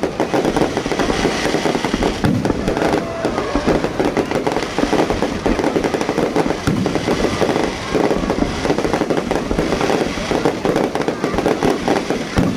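Fireworks going off without a break: a dense, rapid crackle of many small bangs, evenly loud throughout.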